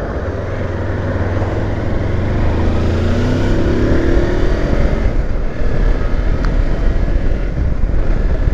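Kawasaki Versys X300 motorcycle's parallel-twin engine running on the road, rising in pitch as it accelerates a few seconds in, then holding steady.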